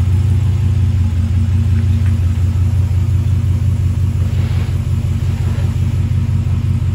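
2019 Ram Rebel pickup's engine running steadily at low revs, a low rumble.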